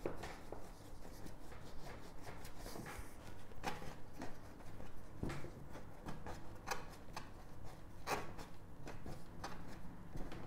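Hands kneading and pressing soft bread dough on a floured wooden cutting board: soft rubbing with irregular light knocks and clicks every second or so.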